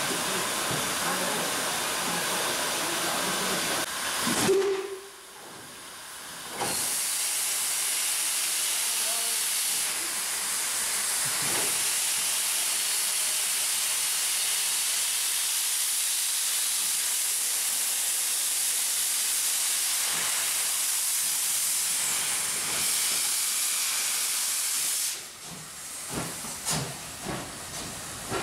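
BR 50 steam locomotive venting steam from its cylinder drain cocks: a loud, steady hiss that stops for about two seconds around five seconds in and dies away near the end. Just before the first break there is a short, loud note.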